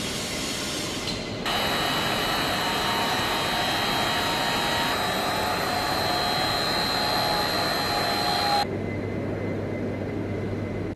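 Steady whirring of machinery. About a second and a half in it turns abruptly louder and brighter, with a high steady whine. Near the end it drops back abruptly to a duller whir with a low hum.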